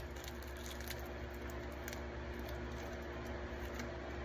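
Garlic cloves being peeled by hand on a plastic cutting board: faint crinkling and small clicks of the papery skins coming off, over a steady low hum.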